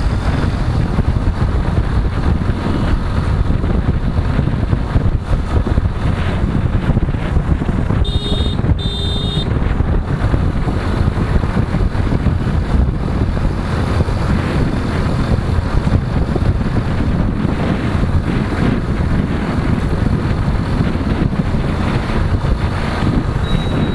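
Wind buffeting the microphone of a moving motorcycle, mixed with its engine and road noise at a steady cruise. About eight seconds in, two short beeps sound in quick succession.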